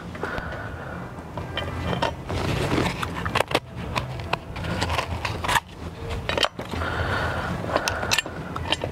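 Hard plastic and metal parts being handled and fitted together by hand: irregular clicks, knocks and scrapes as a metal plate is set against a plastic radar-sensor bracket.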